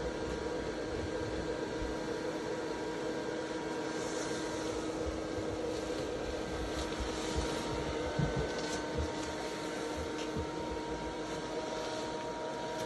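Electric blower fan of a 6 ft inflatable Santa running with a steady hum, filling the nylon figure with air. A few light rustles and knocks come through partway in as the figure rises and is handled.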